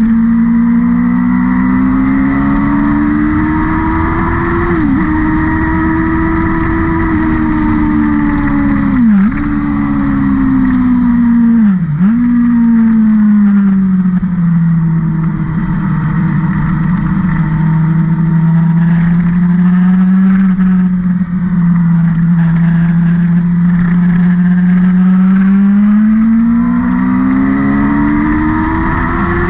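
A vehicle's engine running hard and close on a race circuit. Its pitch climbs and eases, with three quick sharp dips in the first half, then holds lower and steady for a long stretch before climbing again near the end.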